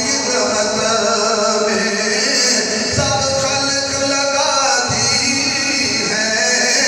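A man's voice chanting verse in a drawn-out melodic style, with long held notes, into a microphone.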